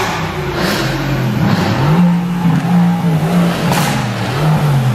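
Car engine revving: the pitch climbs about two seconds in, holds high with small dips, then drops back near the end.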